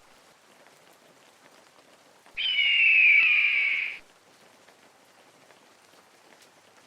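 A single high animal call, about a second and a half long, falling in pitch, over a faint outdoor background hiss.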